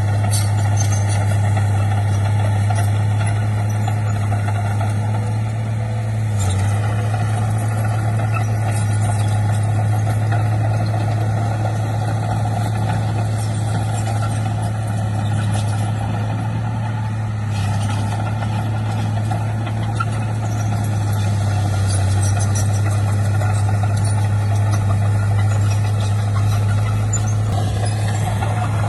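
Heavy diesel engine of earthmoving machinery running steadily with a constant low drone, its note shifting slightly a few times.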